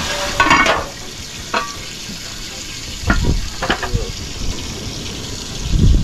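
A large metal pot of curry pork simmering over a wood fire, giving a steady sizzling hiss, with a few short knocks from its metal lid being handled.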